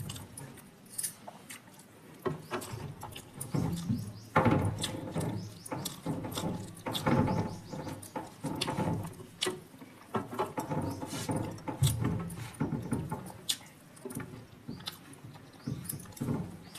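Close-up eating sounds: chewing, lip smacking and wet mouth clicks, irregular and continuous.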